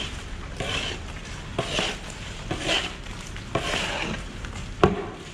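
Metal shovel scraping through sand bedding and flinging it, in repeated strokes about once a second, with one sharp knock of the shovel near the end.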